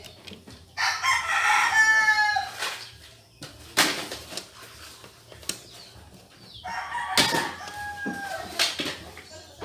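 A rooster crowing twice, each crow about two seconds long and dropping in pitch at the end. A few sharp clicks fall between the crows.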